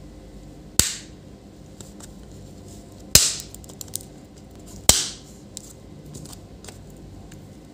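Three sharp snaps, about two seconds apart, as a plastic pry tool levers the aluminium keyboard backing plate off a laptop's plastic top case, the plastic fastenings holding it giving way one by one, with small ticks and scrapes in between.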